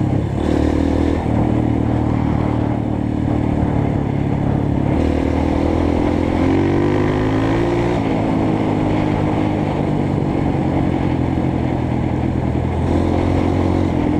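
Honda CRF 230F dirt bike's single-cylinder four-stroke engine running under way at a steady pace. About five seconds in, the engine note climbs for a few seconds, then drops back and holds steady again.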